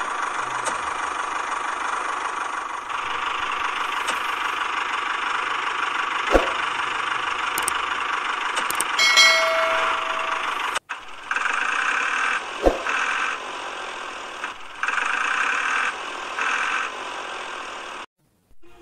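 Small electric gear motor of a homemade toy tractor running with a steady whine, with two sharp knocks. In the second half the motor switches on and off in short spells of a second or two.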